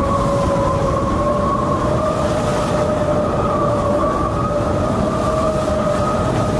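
Onboard sound of the Sodebo Ultim 3 trimaran sailing at high speed: a steady whine from its appendages under water, slowly rising a little in pitch, over a continuous rush and rumble of water and wind.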